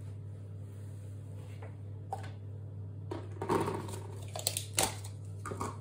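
Containers and plant material being handled by hand: a few short rustles and taps, clustered from about three seconds in to near the end, over a steady low hum.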